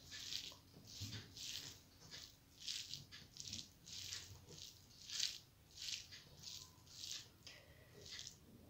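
Fingers squishing and mixing cooked rice with fried red amaranth greens on a plate by hand: faint, soft rustling squishes, about two a second.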